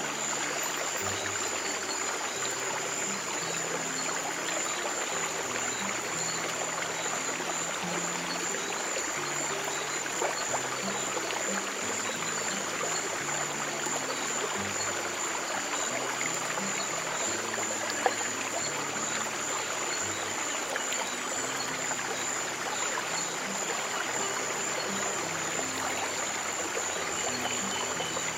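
Steady flowing stream water, with soft, low held piano notes changing every second or two underneath, and a thin high tone running steadily above.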